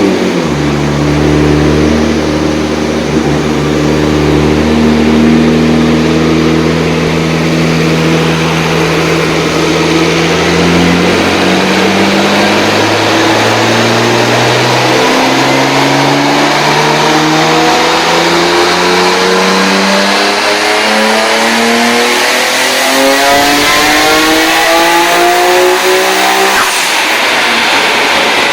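Car engine running loud at a steady speed for about ten seconds, then climbing in pitch through a long rev-up, and falling away shortly before the end.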